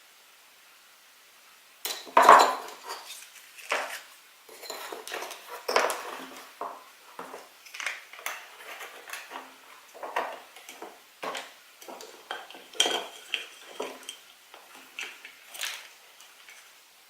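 Small plastic toys and their packaging being handled and opened: an irregular run of clicks, taps and crinkles, the loudest knock about two seconds in.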